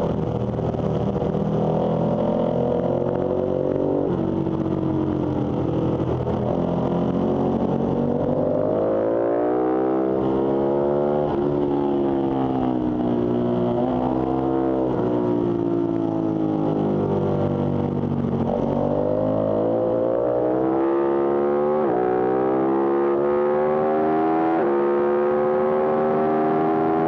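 Ducati V-twin sportbike engine at full track pace, its revs rising and falling repeatedly through the corners. Near the end it accelerates hard up through the gears, the pitch climbing, dropping sharply at each shift, and climbing again.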